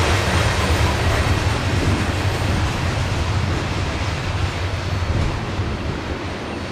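CSX freight train rolling past at close range: a steady rumble of wheels on rail that gradually fades toward the end.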